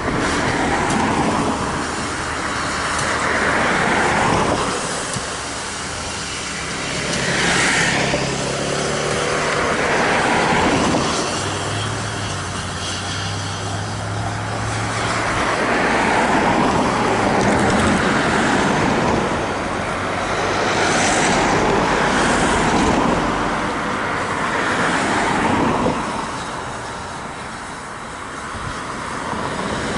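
Road traffic: several cars pass one after another, each rising and fading over a couple of seconds.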